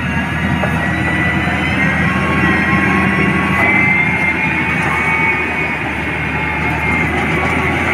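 SDLG G9190 motor grader's diesel engine running steadily under load, with a high whine that wavers in pitch over a low steady drone.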